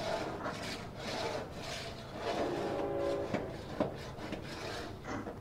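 Scrubbing on a dirty barbecue grill grate to lift grime loosened by a cleaner: repeated, uneven rubbing strokes.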